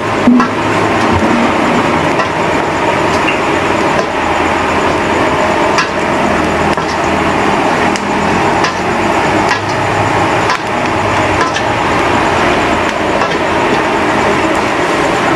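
Metal ladle scraping and knocking against a steel wok as red chillies and shallots are dry-roasted for chilli paste, with irregular clicks about once a second over a steady rushing background.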